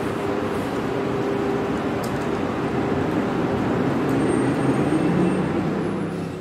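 Street traffic: a steady rumble of road vehicles with a running engine hum, growing a little louder past the middle.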